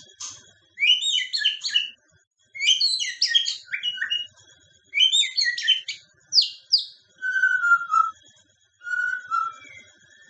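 White-rumped shama (murai batu) singing: a series of short phrases of rapid, varied high notes and whistles, separated by brief pauses. In the second half come lower, slightly falling whistles.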